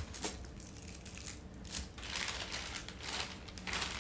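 White packaging being handled, unfolded and torn open by hand, crinkling and rustling in a series of irregular bursts.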